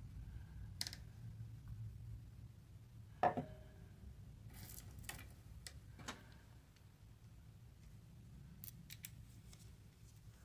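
Quiet, scattered clicks and taps of metal gun-cleaning parts being handled: a Glock barrel, a cleaning rod and its bore attachments picked up and set down, the sharpest knock about three seconds in.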